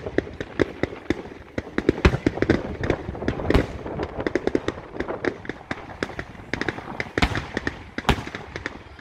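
Fireworks display: aerial shells bursting in quick succession, a dense run of bangs and cracks with several louder booms standing out.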